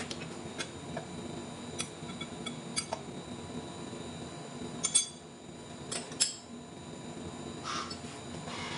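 Scattered metallic clinks and knocks of a hand wrench on the steel jaws of a large lathe faceplate chuck as the jaws are adjusted to true up a flange, the loudest about five seconds in. A steady machine hum runs underneath.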